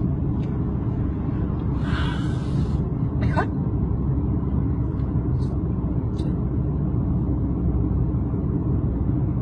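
Steady low rumbling background noise, with a brief hiss about two seconds in and a short, quick rising tone a little later.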